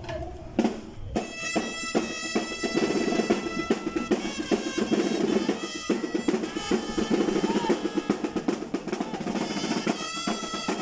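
Parade marching band playing: fast snare-drum rolls and bass-drum beats start about a second in, with a steady held melody over the drumming.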